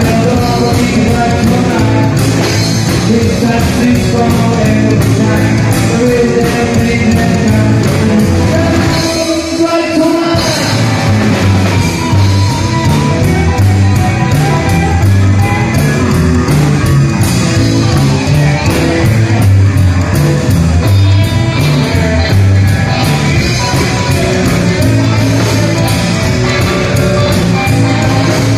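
Live rock'n'roll band playing: upright double bass, electric guitars and drum kit with a steady beat. The bass and low end drop out briefly about ten seconds in, then the full band comes back.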